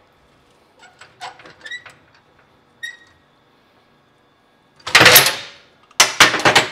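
Small metal clinks and scrapes as steel C-clamps are loosened on a 1932 Ford leaf spring pack, then two loud bursts of steel clanking, about five and six seconds in, as a clamp comes off the now-slack spring leaves and is set down on the steel bench.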